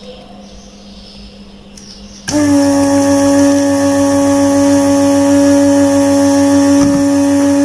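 A loud, steady machine hum with one clear pitch starts abruptly about two seconds in and holds without change.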